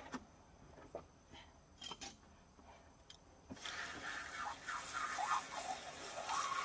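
A few faint clicks and taps, then about halfway through a garden hose starts spraying with a sudden, steady hiss as water rinses a freshly gutted squirrel.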